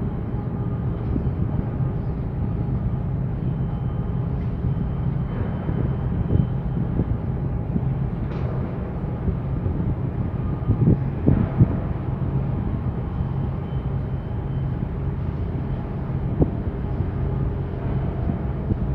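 Steady low engine drone and hum carried across the harbour water, with a few brief knocks about eleven seconds in.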